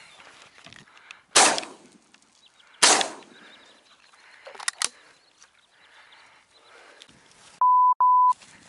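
Two shotgun shots about a second and a half apart, from an over-under, each dying away quickly. Near the end comes a loud, steady electronic beep, broken once in the middle.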